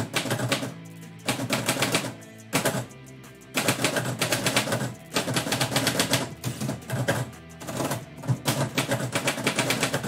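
Typewriter keys struck in quick runs of rapid clacks, broken by short pauses, over background music.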